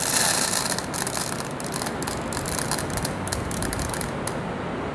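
Plastic airsoft BBs poured from the hand into the feed opening of an airsoft M4 high-capacity magazine. It is a dense rattle of small clicks, thickest in the first second, thinning to scattered clicks after that.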